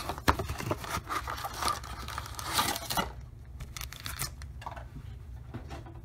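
Foil trading card packs rustling and clicking against each other and the cardboard box as they are slid out and stacked. Busiest in the first three seconds, then only a few light taps.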